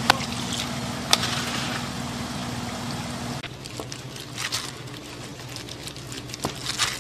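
Food cooking in a hot pan, a liquid bubbling and sizzling over a steady low hum, with a few sharp clicks. The hum cuts off suddenly about three and a half seconds in.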